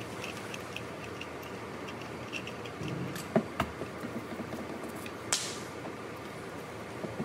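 A rusted steel fuel sending unit being handled: faint clicking at first, then two sharp knocks about three and a half seconds in and a short bright metallic scrape a little after five seconds, over a steady background hiss.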